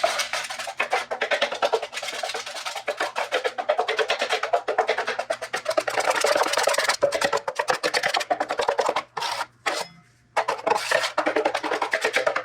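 Drywall knife mixing 20-minute quick-set joint compound in a metal mud pan: rapid, rhythmic scraping and clicking, with a brief pause near the end.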